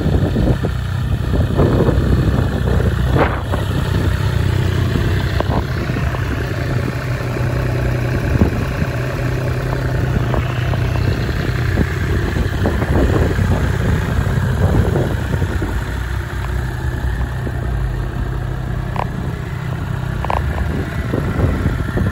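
Triumph Street Triple 765 RS's 765 cc inline-three engine idling steadily, with a few light knocks.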